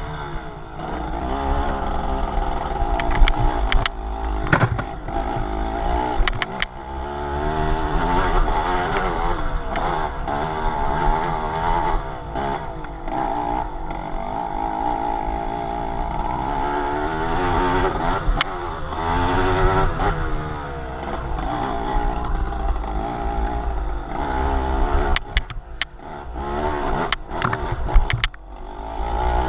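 A motor vehicle's engine running on the move, its pitch rising and falling again and again as it revs and eases off, with scattered knocks and clatter.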